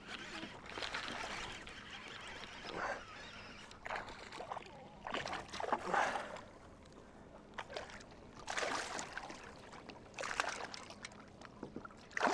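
A hooked bass splashing and thrashing at the water surface as it is played in beside a kayak: a run of irregular splashes and sloshes, the biggest about six seconds in.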